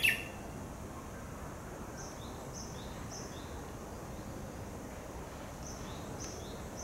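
A Japanese bush warbler's song ends at the start with its loud, quick 'hokekyo' flourish. A Japanese tit follows with two-note phrases, each a high note dropping to a lower one, three times in a row, and again near the end.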